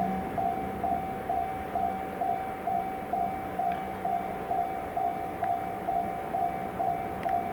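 Japanese railway level-crossing alarm ringing, one bell-like tone repeating evenly about twice a second, over a low steady hum.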